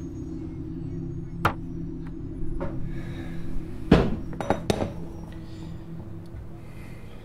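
Kitchenware being handled on a counter: a few sharp knocks and clinks, the loudest about four seconds in, followed quickly by two more. Under them runs a low steady hum that stops about five seconds in.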